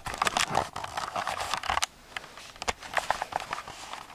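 Cloth rustling and scraping close to the microphone, with sharp handling knocks: a dense string of rustles for about two seconds, then lighter scattered rustles and clicks.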